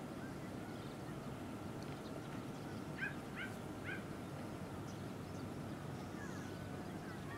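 Faint steady outdoor background with a thin steady tone, and three short, high, rising yelps from a distant animal in quick succession about three seconds in.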